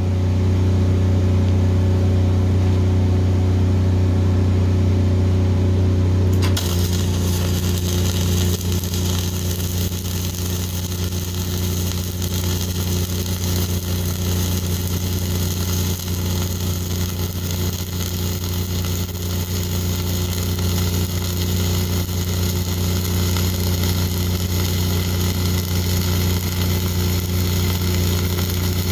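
A diesel engine welder runs with a steady low hum; about six seconds in, the flux-cored arc of NR-305 5/64-inch self-shielded wire strikes and keeps up a steady crackle as the weld is run, the engine held under load.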